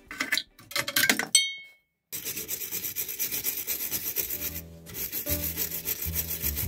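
A wire brush scrubbing a rusty, stuck tie rod end in quick back-and-forth strokes, about five a second, cleaning off corrosion. Before it come a few sharp metallic clicks and a short ring.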